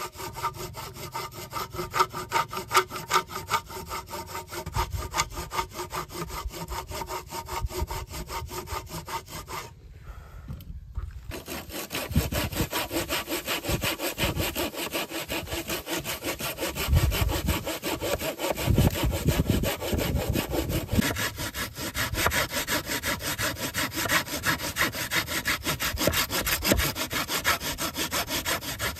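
Hand saw cutting through wood with steady, rapid back-and-forth strokes, broken by a short gap about ten seconds in.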